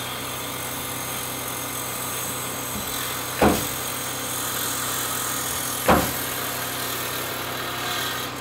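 An engine running steadily, with two short, louder bursts about two and a half seconds apart.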